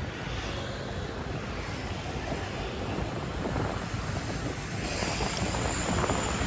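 Wind buffeting the microphone over the steady road noise of a moving vehicle. A faint high whine comes in about five seconds in.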